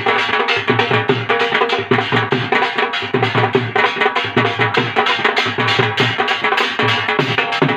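Dance music led by a dhol, a rope-tensioned barrel drum beaten with a thin stick in a fast, steady rhythm, with other pitched tones of the music underneath.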